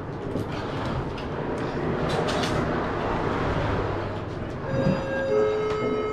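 Steady rushing noise with scattered sharp clicks, typical of airsoft gunfire in the building. About three-quarters of the way in, a held electronic alert of several steady tones at different pitches sounds over a PA, the signal before a game-time announcement.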